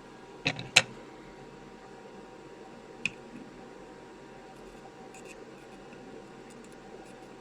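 Sharp clicks and taps of small hand tools during soldering work on a circuit board: two close together about half a second in, a single one near three seconds and a few faint ticks later, over a faint steady hum.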